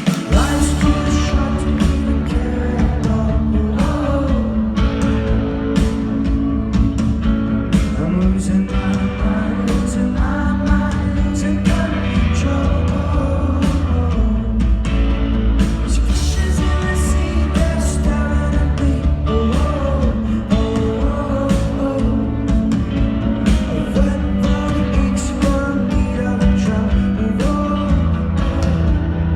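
Rock band playing live: a lead vocalist singing over a steady drum beat, heavy bass and guitars.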